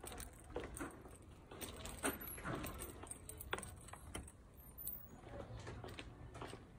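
Faint footsteps of heeled boots on a tiled floor, with irregular clicks, taps and rustles from things being carried and handled.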